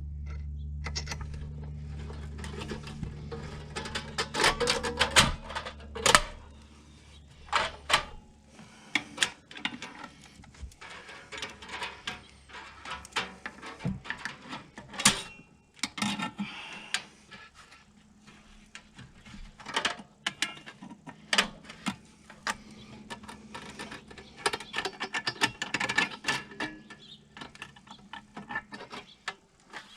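Irregular clicks, clinks and knocks of hand tools and metal parts being handled during work on a snowmobile engine. A steady low hum runs underneath and stops about eight seconds in.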